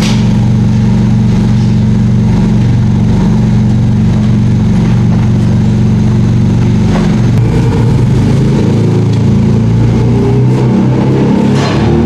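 Porsche 718 Cayman GT4 RS's naturally aspirated 4.0-litre flat-six idling steadily through a loud exhaust. About seven seconds in the note turns uneven as the car moves off, and the engine pitch rises near the end.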